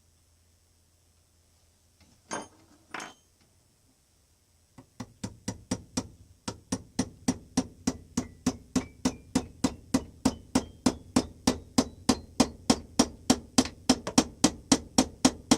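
Steel pin being driven into a drilled hole in a bench-vise lead screw with hammer blows. Two single knocks come first, then a steady run of sharp strikes about three a second, growing louder. The metal ring in each strike rises in pitch as the pin goes in.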